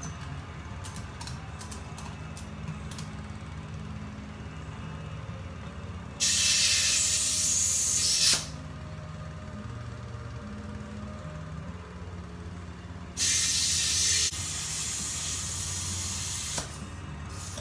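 Compressed air hissing into a small ATV tire to seat its loose beads: two long blasts, the first about two seconds, the second about three seconds and dropping in level partway. A few light clicks come before them in the first seconds.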